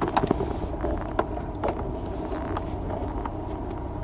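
Vehicle running with a steady low rumble while it is maneuvered into a parking spot, with a few sharp clicks or knocks in the first second and a half.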